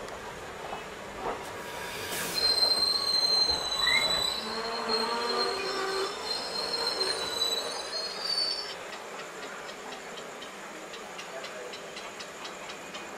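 Gangasagar Express's wheels and brakes squealing as the train slows into the station, heard from on board. A high, steady squeal of several tones starts about two seconds in and stops near nine seconds, leaving a faint, quick, even ticking.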